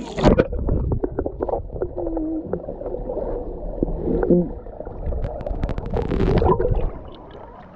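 Underwater audio from an action camera held below the surface of a swimming pool: a muffled rumble with bubbling and gurgling, and a few short, muffled, wavering voice sounds from the swimmer. There is a denser burst of bubbling about six seconds in.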